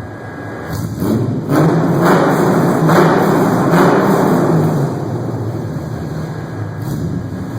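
Ford Mustang 4.0-litre SOHC V6 exhaust, running through longtube headers with the cats deleted and Cherry Bomb glasspack mufflers. The engine is revved: it gets louder from about a second in, stays at its loudest for about three seconds, then drops back to a steadier run.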